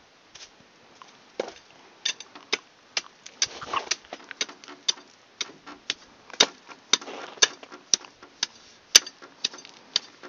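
Hand tool chipping at ice packed around a van's wheel: sharp, irregular clicking knocks, a few strikes a second, some much louder than others.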